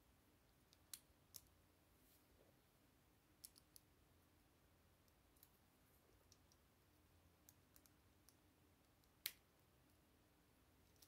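Plastic Lego bricks clicking as pieces are handled and pressed together: scattered sharp clicks, the loudest about nine seconds in, over near silence.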